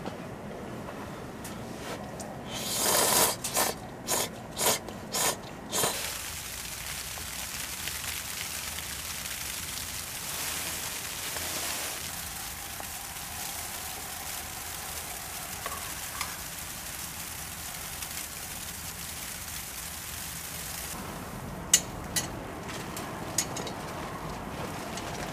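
A hotpot simmering on a kerosene heater: a steady sizzling hiss. A few seconds in there are several loud, short noisy bursts, and near the end a few sharp metallic clicks as mess tins are set on the heater.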